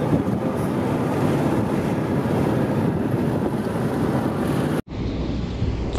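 Steady wind and road noise inside a moving Toyota RAV4's cabin at speed. It cuts off abruptly near the end and gives way to a quieter low rumble.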